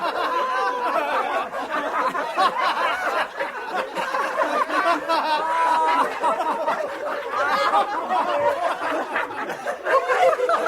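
A group of men laughing together, many chuckles and laughs overlapping without a pause.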